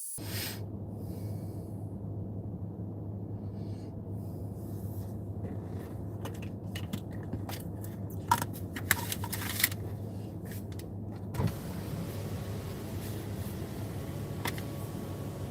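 Steady low hum of an idling vehicle, with a cluster of sharp clicks and jingles like keys about halfway through and a single knock a little after.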